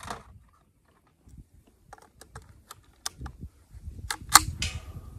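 Scattered small clicks and knocks of a rifle being handled, with two sharp metallic clicks about four seconds in.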